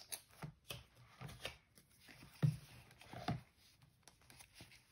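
Paper and card rustling and scraping as a die-cut card is slid into a card pocket of a notebook, in a string of short scrapes, the loudest about two and a half seconds in.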